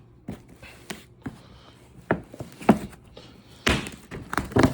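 A cardboard case of fireworks being handled and opened: a series of knocks and thunks, with a short scraping rustle about two-thirds of the way through.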